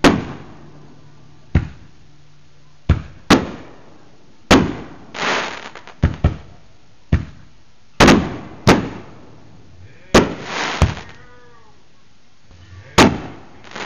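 Aerial fireworks exploding: about a dozen sharp bangs at irregular intervals, some followed by a brief hissing crackle.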